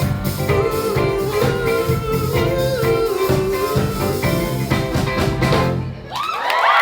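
Live band playing the last bars of a pop song, with guitar, drums and a held melody line; the music stops about six seconds in and the audience breaks into cheering and whoops.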